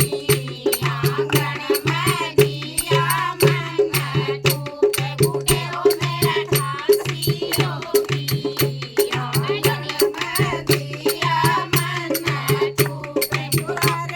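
Haryanvi folk song: a voice singing over a fast, steady beat of rattling, clicking percussion and a low pulsing drum.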